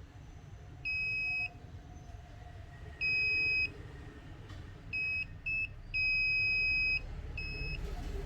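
Digital multimeter's continuity buzzer, used to check a phone's battery connector for a short: six high, steady beeps of uneven length, short chirps and longer tones up to about a second, as the probes make and break contact.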